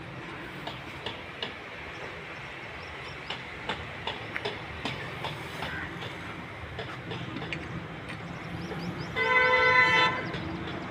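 A steady low mechanical hum with scattered light clicks, then a vehicle horn sounding once for about a second near the end.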